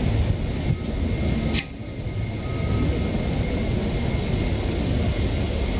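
Steady low rumble of city street traffic, with a sharp click about one and a half seconds in.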